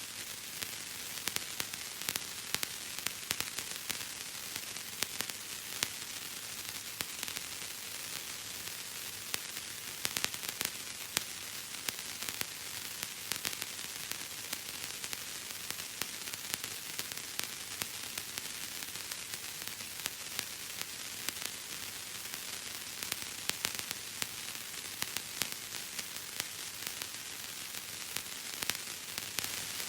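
Bubble wrap being squeezed and popped: many small, sharp pops at irregular intervals over a steady hiss.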